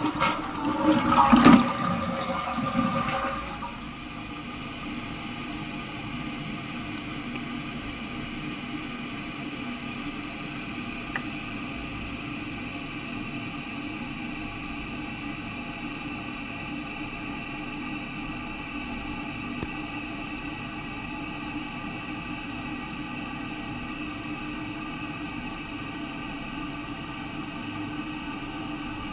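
Toilet flushing, a loud rush of water that dies down over about the first three seconds, followed by the tank refilling with a steady hiss of running water.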